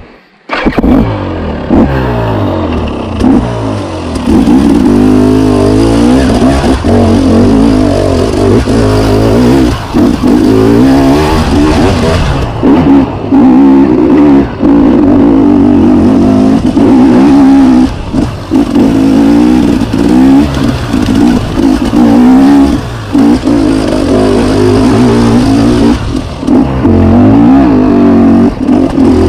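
KTM enduro dirt bike engine revving hard while climbing a muddy trail under load, its pitch rising and falling constantly, with brief drops where the throttle is rolled off.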